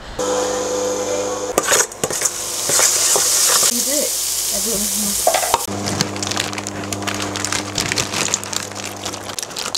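Chopped onions and garlic sizzling in hot oil in a wok, the sizzle loudest in the middle stretch. After a cut a little past halfway, a rapid crackle of popping bubbles as water boils in the wok, over a steady low hum.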